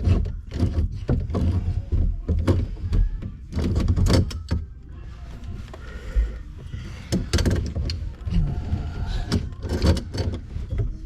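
Handling noise under a kitchen sink: irregular knocks, clicks, scrapes and rustling as a faucet's supply hoses and fittings are worked by hand and screwed in.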